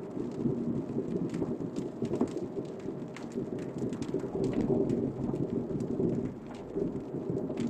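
Rain falling on a moving car, heard from inside the cabin: scattered drop ticks over a steady low road noise.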